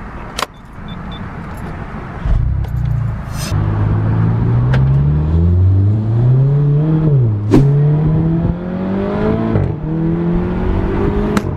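Volkswagen Mk7 GTI's turbocharged 2.0-litre four-cylinder, heard from inside the cabin, accelerating through the gears on a fresh E85 and 93-octane blend. The engine note rises, drops back at an upshift about seven seconds in, rises again, and drops at a second upshift near nine and a half seconds, then holds steady.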